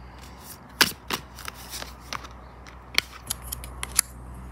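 Oracle cards being handled, a card drawn from the deck and laid down on the spread: irregular sharp clicks and flicks of card stock.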